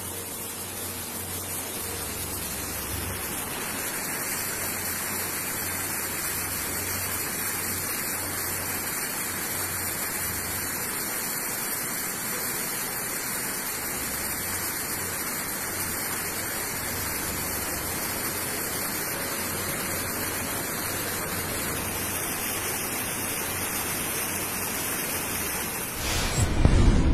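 Steady rushing noise of water, even and unbroken, with a faint low hum beneath it.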